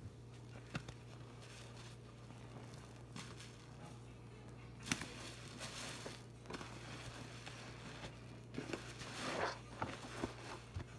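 Foam sponge soaked in soapy water being squeezed and pressed in a sink of suds: wet squelching and crackling foam in irregular bursts, loudest about five seconds in and in a cluster near the end.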